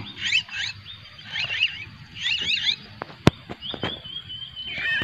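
Javan myna (jalak kebo) nestlings squealing from inside their burrow in an earth bank as a hand reaches in for them. Short bursts of wavering high calls come about once a second, then one held high note near the end, with a sharp click about three seconds in.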